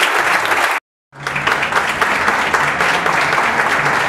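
Audience applauding in a hall, a dense patter of many hands clapping. The sound drops out completely for about a third of a second just under a second in, then the applause carries on.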